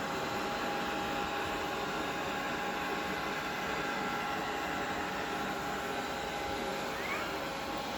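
Vacuum cleaner running steadily: an even rush of air with a few steady held tones from the motor.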